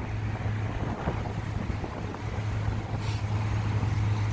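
A steady low hum over an even outdoor noise floor.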